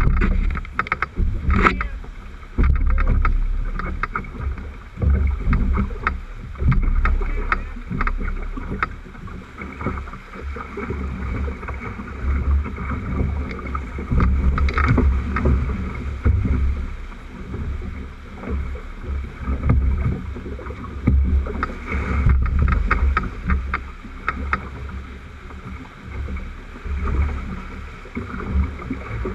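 Rushing white-water rapids splashing around a rowed drift boat, with a pulsing low rumble and frequent short knocks and slaps of water on the hull and oars.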